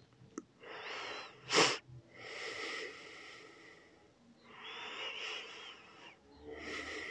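Slow, audible breaths, about four long in-and-out breaths with short pauses between them. A single brief, sharp sound about one and a half seconds in is the loudest thing heard.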